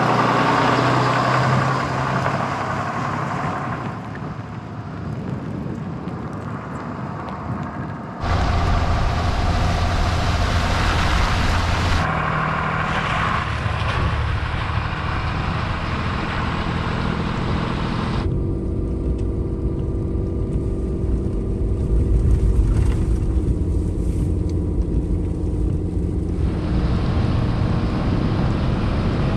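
Pickup truck carrying a camper, driving on a snowy gravel forest road: first its engine and tyres as it comes past, then from about eight seconds in a steady low rumble of engine, tyres and wind on a microphone mounted on the truck's front. The sound changes abruptly a few times.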